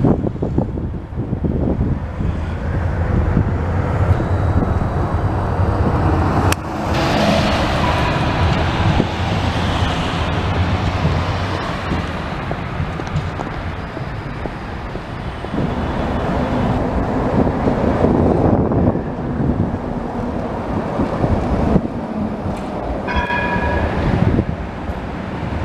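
Bombardier Flexity Outlook trams running along the tracks with street traffic: a steady rumble of wheels and motors with a low hum. Near the end a short tonal warning signal, a tram's gong, sounds briefly.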